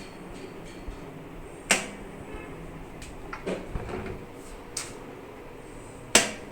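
Plastic side latches clamping the top cover onto a Eureka Forbes drum vacuum cleaner, pressed shut by hand: two sharp snaps about four and a half seconds apart, with lighter plastic knocks and handling between.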